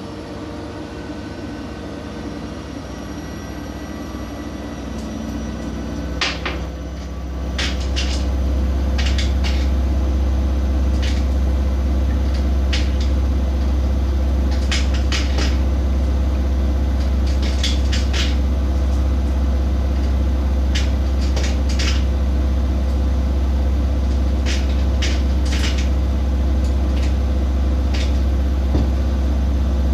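Siemens Siwamat IQ 716 washing machine's drum speeding up over about seven seconds into a steady high-speed spin with a loud low hum. Scattered sharp clicks come through over the hum.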